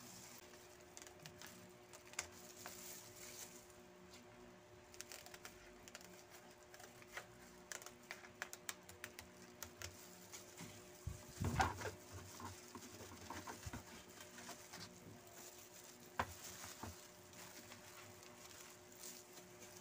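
Plastic-gloved hands handling crab sticks and sheets of dry rice paper: light crinkling, rustling and small clicks and taps, with a louder knock about halfway through and another sharp tap near the end. A faint steady hum runs underneath.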